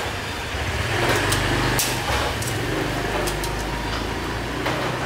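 Metal tongs clicking against a stainless steel grill rack several times while slabs of pork belly are arranged on it, over a steady low mechanical hum that comes in about a second in.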